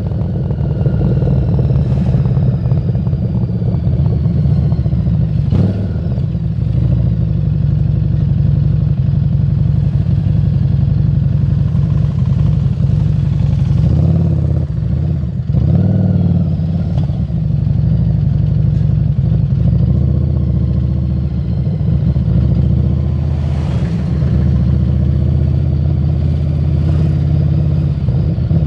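Harley-Davidson Street 750's V-twin engine running on the move through a Screamin' Eagle exhaust, a steady low exhaust note. About halfway through the note briefly breaks off and then picks up again.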